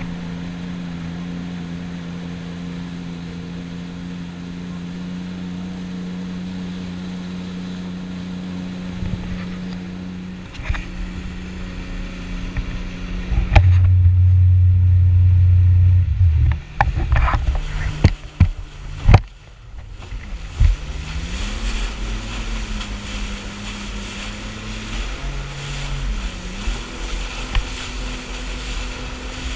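Personal watercraft engine running at speed, a steady drone with water spray and wind rush. About 14 s in a loud low rumble covers it for a few seconds, followed by several sharp knocks. The engine pitch then rises and holds, dipping briefly near the end.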